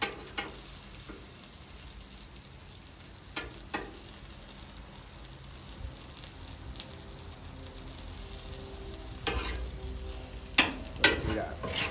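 Italian sausages and onions sizzling on a Blackstone flat-top griddle, with a few sharp clicks of metal utensils on the cooking surface and a louder cluster of clicks and clatter near the end.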